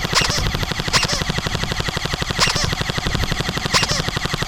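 Airsoft M4 carbine firing one long, unbroken full-auto burst, a rapid even rattle of shots.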